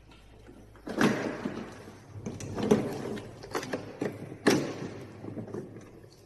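Hard parts being handled, with scraping and clattering, in three louder bursts about a second, nearly three seconds and four and a half seconds in, and scattered clicks between them.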